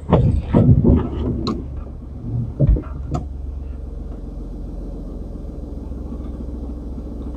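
Car heard from inside its cabin: a steady low rumble of the engine, with several knocks and bumps in the first couple of seconds, then the rumble alone until it cuts off suddenly at the end.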